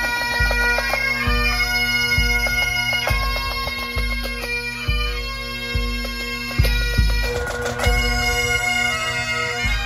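Pipe band playing: several Great Highland bagpipes sounding a steady drone under the melody, with a bass drum beating about once a second.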